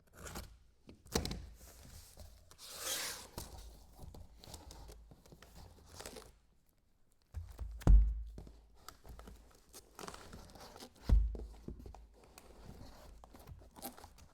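A cardboard case of card boxes being opened: tearing and rustling of cardboard and wrap, with a longer rip about three seconds in. Heavy thumps come about one, eight and eleven seconds in, the one near eight seconds the loudest.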